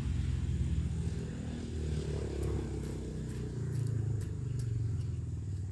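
A small engine running steadily in the background, its low pitch wavering up and down.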